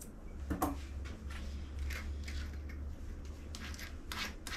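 Grooming scissors snipping through a cavoodle's fur, a few irregular snips, over a low steady hum.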